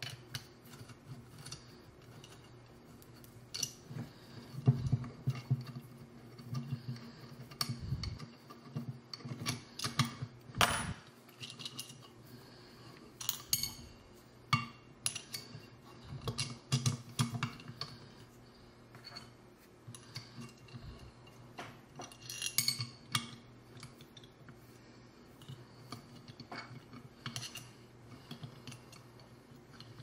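Metal parts of a Hapstone RS knife sharpener being handled while it is taken apart and refitted: irregular clicks and clinks of a hex key, screws and aluminium brackets, with a few louder knocks and soft handling bumps.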